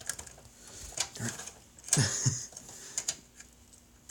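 Scattered light plastic clicks and rattles of a SATA power cable and connector being handled and pushed onto a drive inside a PC case, with a short low grunt-like voice sound about two seconds in.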